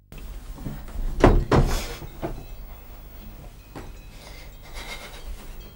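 A series of knocks and thumps over a low hum: a loud cluster about a second in, then lighter, spaced-out knocks.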